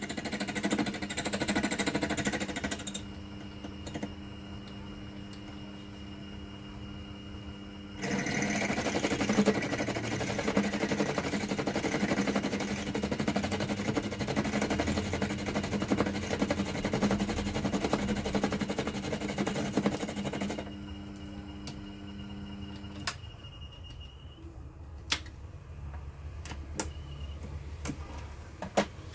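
Proxxon PD 250 mini lathe running with a steady motor hum while the tool cuts metal, the cutting noise dropping out for a few seconds early on and then returning for about twelve seconds. The motor stops a little over twenty seconds in, followed by a few sharp clicks.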